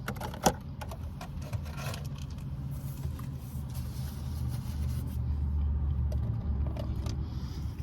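Steady low rumble inside a car, with scattered small clicks and rustles of takeout food packaging being handled, one sharp click about half a second in.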